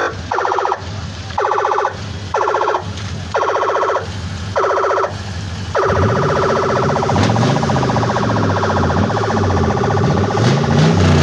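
Siren fitted to a Toyota Tundra pickup sounding in five short blasts about a second apart, then holding a continuous tone from about halfway through. Under the steady tone the truck's engine revs up and down.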